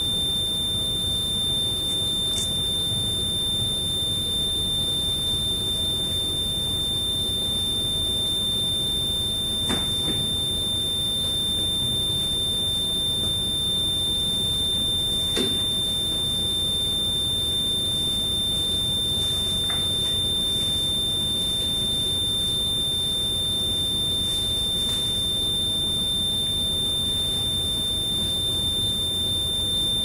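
Electronic buzzer on a breadboarded burglar alarm circuit sounding one continuous high-pitched tone, steady and unbroken. This is the alarm state, triggered by the interrupted infrared beam.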